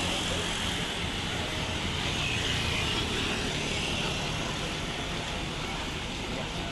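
Steady vehicle noise: a large engine running, with traffic noise around it and no horn sounding.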